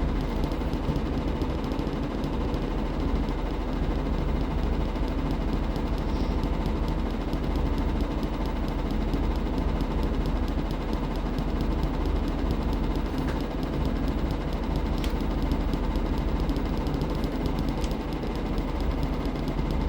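Washing machine running with a steady rumble and a fast, continuous rattle.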